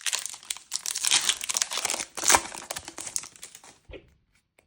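The plastic foil wrapper of a trading-card booster pack crinkling and tearing as it is opened by hand. The crackling stops about four seconds in, leaving a few faint clicks.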